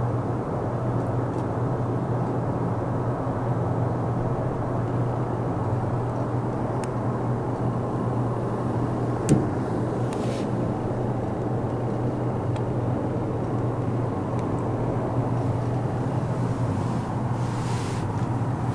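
Steady low hum and rumble inside an enclosed Ferris wheel gondola, with one sharp click about nine seconds in.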